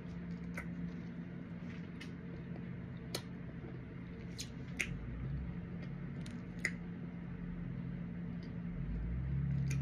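Wet mouth clicks and smacks of someone eating vanilla ice cream, scattered and irregular, over a steady low hum.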